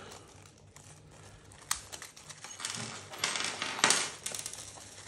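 Small clear plastic hardware bag crinkling as it is handled and opened, with small metal screws clicking against each other inside. A single sharp click comes a little under two seconds in, then a busier stretch of crinkling and clicks in the second half.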